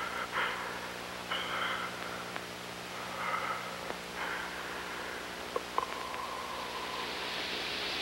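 A person's faint heavy breathing in several short breaths, over a steady low hum. Near the middle come a couple of small clicks and a brief faint tone.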